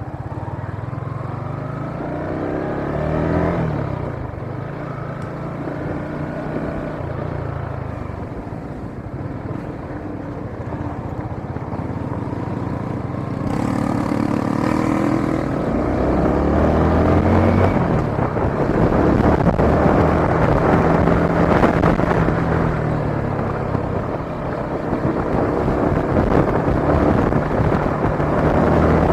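Yamaha Sniper 155 motorcycle engine running while riding, its pitch rising and falling with the throttle. Wind noise on the microphone grows louder about halfway through.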